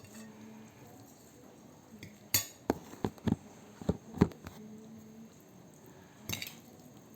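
Cutlery and dishes clinking and knocking, a quick run of sharp clinks and knocks in the middle and one more near the end, as a meal is handled.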